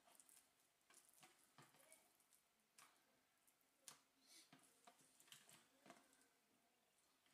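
Near silence, with faint scattered taps and soft wet squishes of raw rabbit meat being handled and laid on a wooden chopping board; the clearest tap comes about four seconds in.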